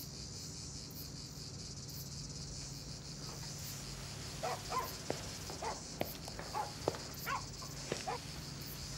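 Crickets chirping steadily over a low hum, with a few short faint blips and clicks in the second half.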